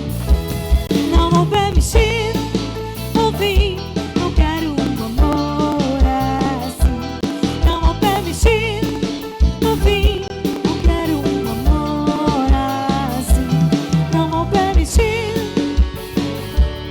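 Live band playing an instrumental break: a drum kit with a steady kick drum, a bass line, and a wavering lead melody on top.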